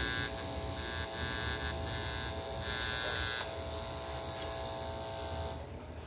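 Electrical buzz and hum from the amplifier coming through the freshly wired 3-way speaker, with a bright hiss over it; no music signal is getting through yet. It drops away about five and a half seconds in.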